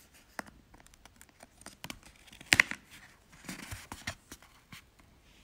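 Paper flap of a children's lift-the-flap book being handled and lifted: scattered light clicks and rustles of paper, with one sharp snap about two and a half seconds in and a short rustle a second later.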